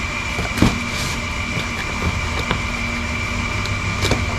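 Steady mechanical hum with a high, even whine running under it, and a few light knocks and clicks from handling the boxed servo motor parts.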